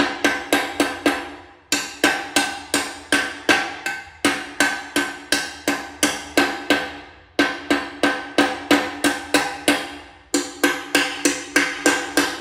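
Rapid, even tapping of a mallet on ceramic tile as tiles are bedded, about four taps a second. The taps come in runs of two to three seconds with brief pauses between, and each tap rings briefly.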